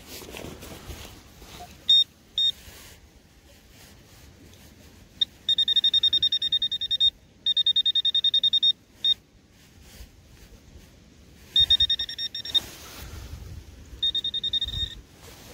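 Rapid, high-pitched electronic beeping of a metal-detecting pinpointer sounding on a buried metal target: two short beeps about two seconds in, then several runs of fast pulses lasting a second or so each. Faint rustling of digging between the runs.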